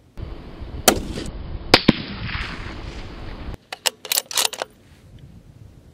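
Remington 700 bolt-action rifle in .308 Winchester firing: two sharp, very loud cracks under a second apart over a rush of noise. About four seconds in, a quick run of metallic clicks follows as the bolt is worked to chamber the next round.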